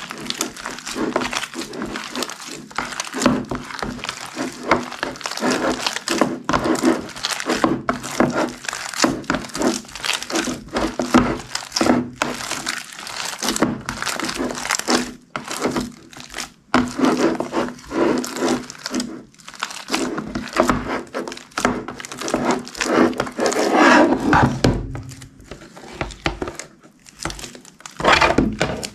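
Slime being squished, stretched and kneaded by hand, a dense, irregular run of sticky pops and crackles that gets louder about 24 seconds in.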